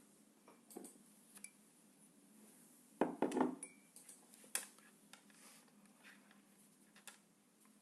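Scattered light clicks and clinks of small objects being handled, about half a dozen, with the loudest short cluster about three seconds in.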